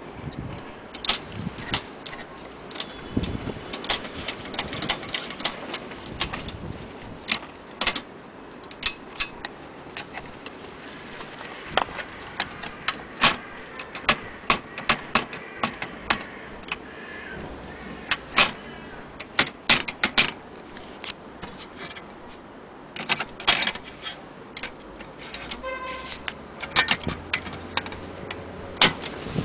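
Irregular sharp clicks and taps, some close together and some spaced out, over a steady background hiss.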